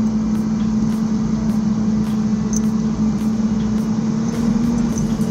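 A heavy machine's engine running steadily at an even pitch, a continuous hum over a low rumble.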